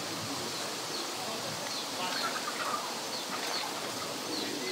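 Small birds chirping in short high notes every half second or so, with a brief warble about two seconds in, over a steady outdoor hiss.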